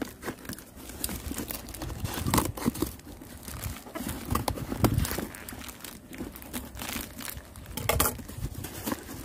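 Cardboard shipping box being cut open with scissors and torn by hand: irregular snips, tearing and crumpling of the cardboard.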